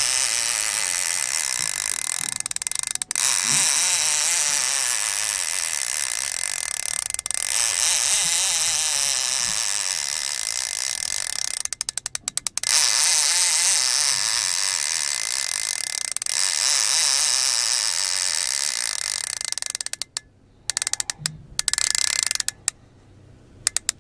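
Fishing reel's drag paying out line as a big fish runs, a dense mechanical buzz that goes on almost without a break. Near the end it stops, then comes back in a few short spurts as the fish takes line in shorter pulls.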